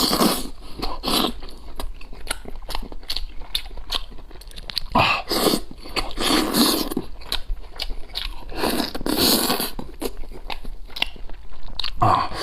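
A person chewing and biting into braised goat leg meat close to the microphone: a run of wet smacking clicks with a few louder bursts of eating noise.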